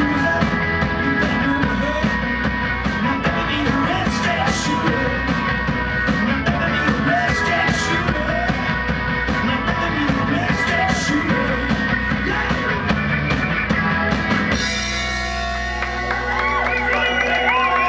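Live garage rock band playing loud: electric guitars, bass and a drum kit with steady cymbal hits, with sung vocals. About fourteen seconds in the drums stop and the song ends on a ringing guitar chord, with high wavering tones over it near the end.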